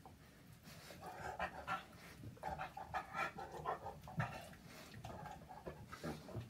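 Dogs at play: irregular short panting breaths in quick uneven bursts.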